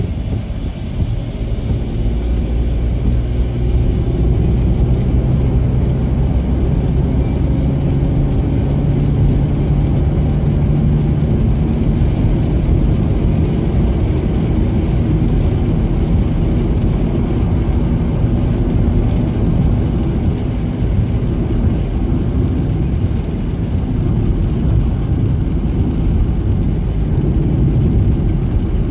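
Car engine and tyres heard from inside the cabin while driving on a wet road: a steady low engine drone with tyre hiss from the wet surface.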